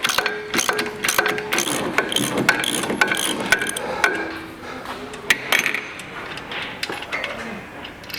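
Ratchet wrench clicking in quick, uneven runs of strokes while bolts are loosened, busiest in the first half and thinning out later.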